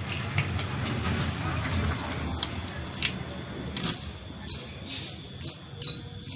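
Irregular metal clicks and taps of tools working a ceiling fan's bearing out of its housing, over a low steady background rumble.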